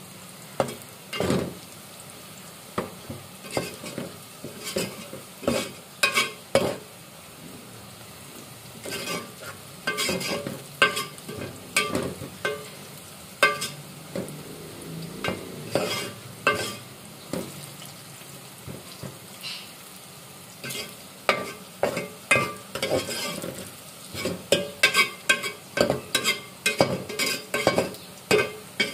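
Sliced onions frying in oil in a metal pot with a steady sizzle, while a metal spoon stirs them and scrapes and clicks against the pot in repeated quick strokes, thickest in the middle and near the end. The onions are at the last stage of browning.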